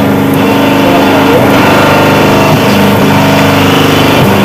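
Home-built plastic injection moulding machine running with a steady, loud hum while plastic pellets are fed in; the tone shifts briefly near the end.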